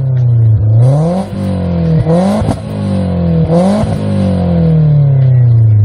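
Car engine revving hard, climbing in pitch and dropping sharply three times as if shifting up through gears, then winding down steadily over the last two seconds.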